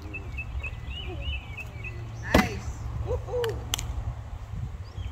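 A cornhole bag lands with a sharp slap on a wooden cornhole board about two seconds in, followed by a lighter knock a little over a second later. A bird chirps repeatedly in the background.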